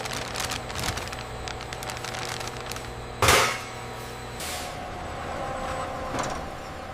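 Factory machinery running with a steady hum and a light clatter of clicks, broken about three seconds in by a sudden loud burst that dies away quickly.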